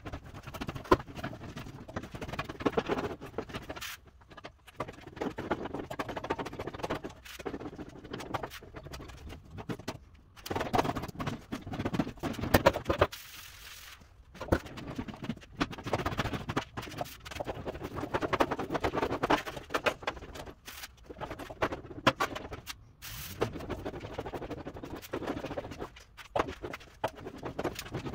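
Steel rear fender of a 1953 Chevy truck being rolled back and forth through an English wheel, lightly wheeling out roughed-out damage to smooth the panel. The rolling comes in stretches of a few seconds, broken by brief pauses as the panel is moved to a new spot.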